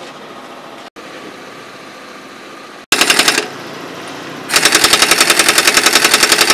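Pneumatic impact wrench hammering in rapid, evenly spaced strokes: a short burst about three seconds in, then a longer run from about four and a half seconds in, over steady background noise.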